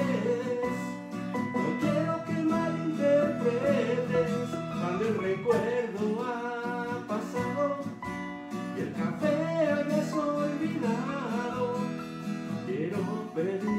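Acoustic guitar strummed together with a Casio electronic keyboard, playing a song.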